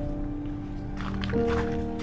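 Background music of sustained, held notes, shifting to a higher chord about one and a half seconds in.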